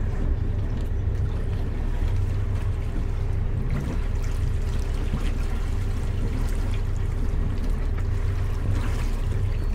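Sailing yacht's inboard diesel engine running steadily as the boat motors slowly ahead, a low, even rumble with water sounds along the hull.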